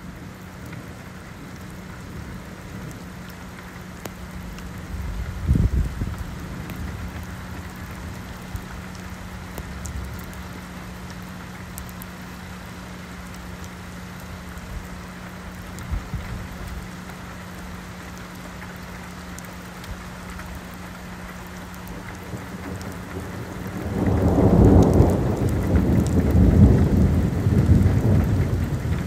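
Steady rain falling on wet pavement during a thunderstorm, with a brief boom about five seconds in. About five seconds before the end a long, loud rumble of thunder rolls in.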